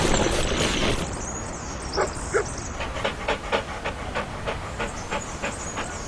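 A dog panting quickly, about three to four pants a second, after a loud whoosh in the first second.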